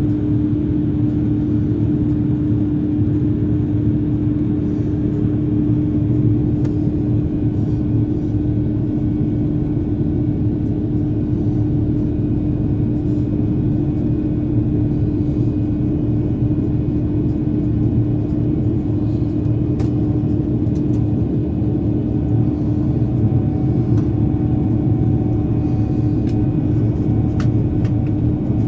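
Cabin noise inside an Airbus A330-900neo climbing after takeoff: a steady, loud rumble of the Rolls-Royce Trent 7000 engines and airflow, with a steady hum over it.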